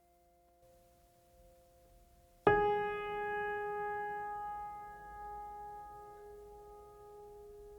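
Background music: faint held tones, then a single note struck about two and a half seconds in that rings out and slowly fades.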